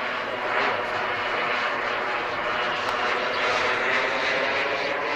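Small turbine jet engine of a radio-controlled model jet in flight: a steady rushing jet noise.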